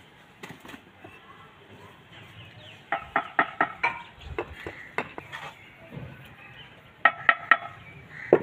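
Mason's steel trowel clinking against brick and mortar: a quick run of ringing metallic taps a few seconds in, then three sharp taps near the end.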